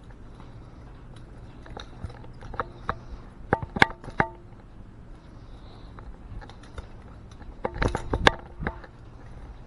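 Sharp clicks and clacks of small hard objects being handled, some with a brief ringing, in two bunches about three and a half and eight seconds in, over a steady low hum.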